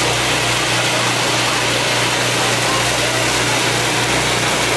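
Hand-held fountain firework jetting a column of sparks, burning with a steady, loud rushing hiss that does not break or change.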